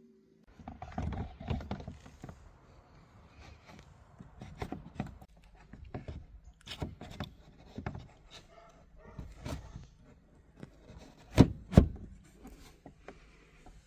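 Handling noise of hard plastic car bumper parts: irregular knocks and scrapes, then two sharp clicks less than half a second apart near the end.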